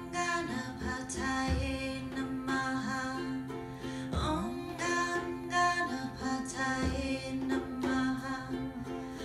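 Devotional chant: a woman singing over a strummed ukulele, with a sustained harmonium drone and slow, deep frame drum beats.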